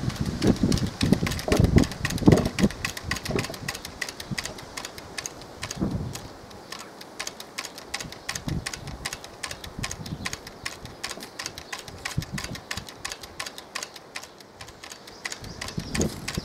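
Home-made wooden whirligig clicking fast and steadily as its propeller spins in the wind. Wind gusts buffet the microphone in the first few seconds and again near the end.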